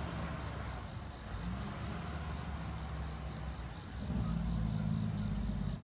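Diesel engine of a 2004 American LaFrance fire engine pulling away down the street, a low drone that rises in pitch twice as it accelerates. The sound cuts off abruptly near the end.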